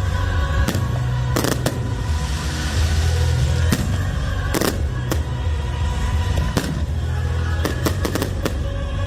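Fireworks bursting overhead: a dozen or so sharp bangs at irregular intervals, several in quick succession near the end, with a stretch of crackling about two seconds in. Music plays steadily underneath.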